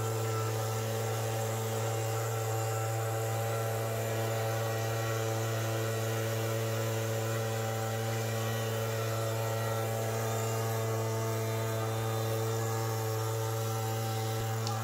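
An engine running at a steady speed: a constant low hum with overtones, its pitch unchanging throughout.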